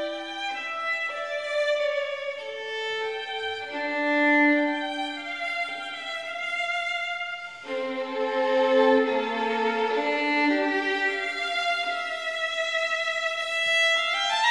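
Background music led by a violin, playing held notes that change about every second.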